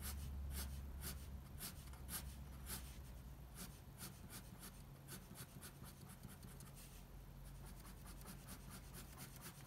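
Ink pen scratching across paper in quick, evenly spaced hatching strokes, about three or four a second, faint.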